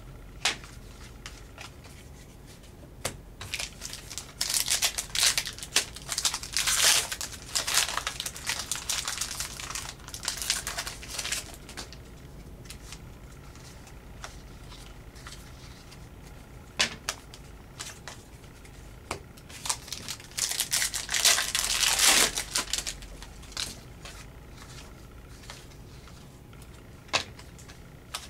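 Hockey trading cards being handled and flipped through by hand, cards sliding and flicking against each other. There are two longer stretches of rustling, with scattered sharp clicks between them.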